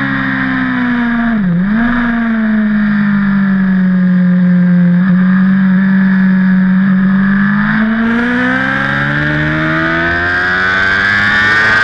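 BMW HP4's inline-four engine, heard from onboard at speed. Its pitch dips briefly about a second and a half in and holds lower and steady through a corner, then rises steadily from about eight seconds in as the bike accelerates out.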